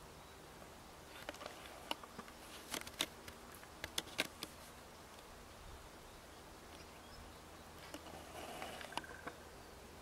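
Short, sharp chirps from a European goldfinch in two bursts, one starting about a second in and a second near the end, over faint outdoor hiss.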